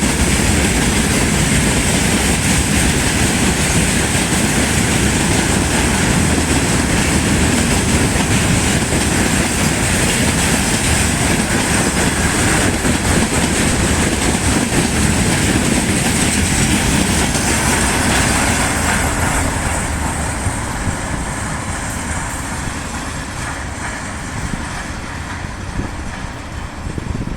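Freight train wagons rolling past, wheels clattering over the rail joints, dense and steady, then fading after about twenty seconds as the train moves away.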